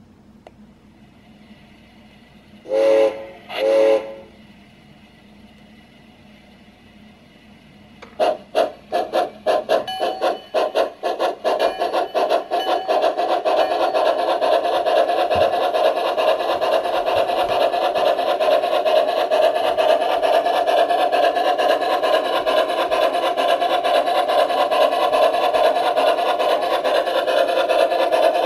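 Sound system of a Bachmann G-scale Two-Truck Climax steam locomotive model: two short whistle blasts about three seconds in, then from about eight seconds the steam chuff starts with slow, separate beats that quicken into a steady, fast chuffing as the locomotive picks up speed.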